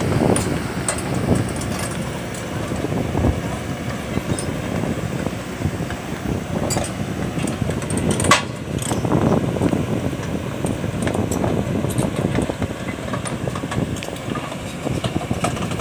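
Kobelco SK200 excavator's diesel engine running steadily under working load as the machine holds and shifts a steel sieve frame, with a single sharp knock about eight seconds in.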